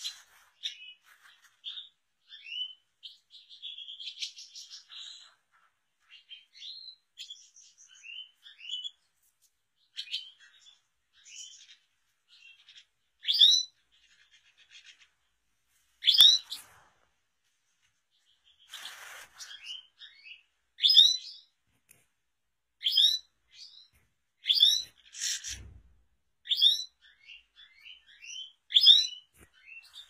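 European goldfinches twittering and chirping, a busy run of short high notes. About halfway through, louder sharp rising call notes join in every second or two.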